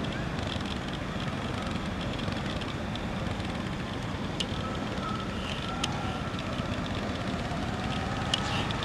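Motorcycle engine running steadily under a constant rush of road and wind noise, with a faint engine note drifting in pitch and a few sharp clicks in the second half.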